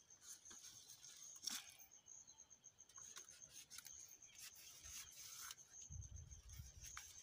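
Faint rubbing and scraping of a sisal leaf being split into thin strips with a panga, with a few soft clicks, over a steady high insect trill. A low rumble comes in near the end.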